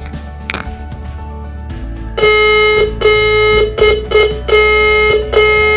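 Morse code practice oscillator sending the comma, dah-dah-di-di-dah-dah, as a steady keyed tone that starts about two seconds in after a low hum.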